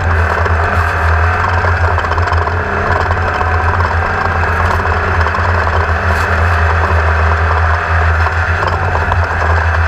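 Engine running at a steady pitch, with a dense rushing noise over it and no let-up.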